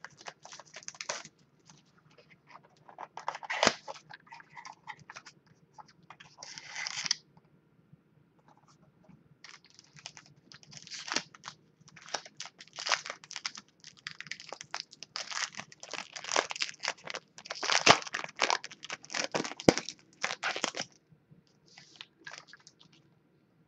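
Foil trading-card pack wrapper being torn open and crinkled by hand in irregular bursts, with a near-continuous stretch of crinkling in the second half.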